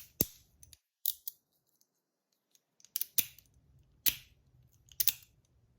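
Sharp clicks and clacks from the copper parts of a tank fidget being handled and worked, about eight in all, several in quick pairs, with a pause near the middle.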